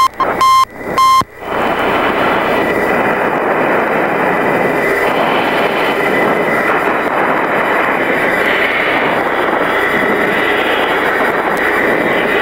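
Three short high beeps in the first second, then a steady rush of F-14 Tomcat cockpit noise, the jet engines and airflow heard through the aircraft intercom, on final approach with flaps down and speed brakes out.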